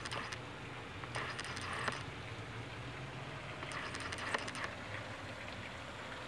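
Pepper plant leaves rustling and crinkling against a handheld camera in three short spells: at the start, about a second in, and around four seconds in. A steady low hum runs underneath.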